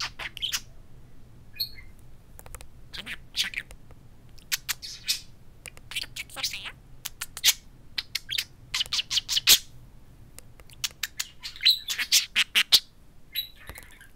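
Budgerigar chattering to its reflection in a mirror: irregular bursts of quick chirps and clicks, busiest in the second half.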